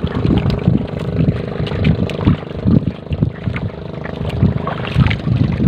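A small fishing boat's engine running steadily, under irregular low thuds and splashing as a wet fishing net is hauled in over the side.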